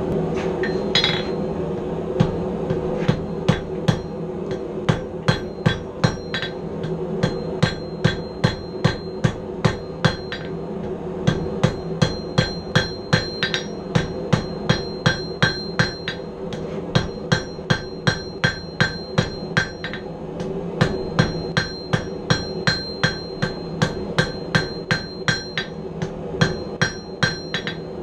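A hand hammer strikes red-hot steel on an anvil, drawing the end out to a point. The blows come quickly, about two to three a second, in runs of several seconds with short pauses between. A high ring holds through each run, over a steady background hum.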